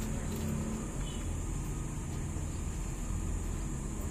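Steady low engine rumble, unchanging in level.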